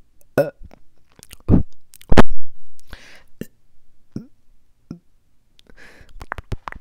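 Mouth sounds made right against a small lavalier microphone: scattered wet clicks, pops and lip smacks with short quiet gaps, the loudest about two seconds in and a quick run of clicks near the end.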